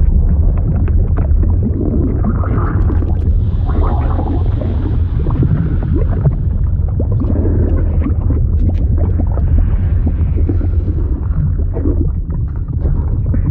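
Liquid sound effect: a steady deep rumble with irregular bubbling and gurgling over it, like heard underwater.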